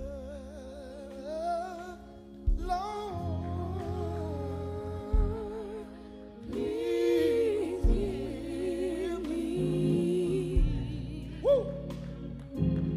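Slow gospel singing by women's voices, long held notes with vibrato, over sustained low instrumental chords. A low drum thump lands about every two and a half seconds.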